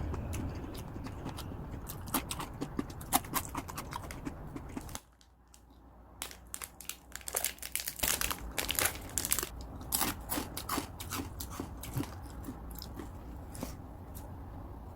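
Close-up chewing of a crunchy snack: rapid crisp crunches, with a short lull about five seconds in, then dense crunching again that thins out near the end.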